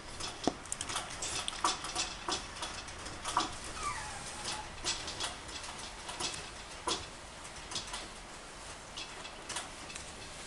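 Long-haired Chihuahua puppy moving about, with scattered clicks and taps from its claws and paws, and one short falling squeak about four seconds in.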